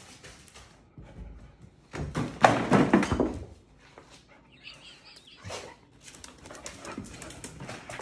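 Two Belgian Malinois dogs playing, with a loud burst of barking about two seconds in and a short whine near the middle. Later comes a run of light clicks, typical of claws on a tile floor.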